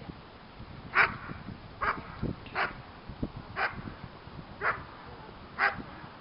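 German shepherd barking in short sharp barks, six of them about once a second, as it is worked up at the helper's bite sleeve in protection training.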